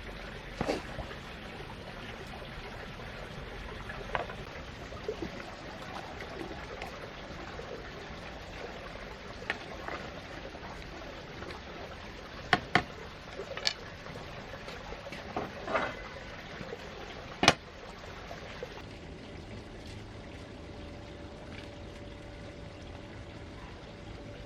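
Water trickling steadily, with scattered sharp clicks and knocks. Near the end a faint steady hum comes in.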